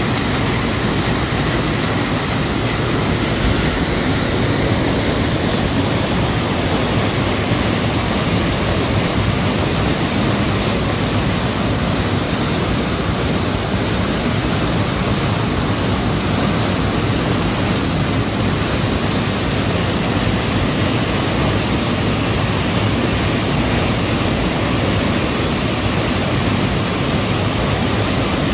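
Waterfall: water falling with a steady, unbroken rush that does not change.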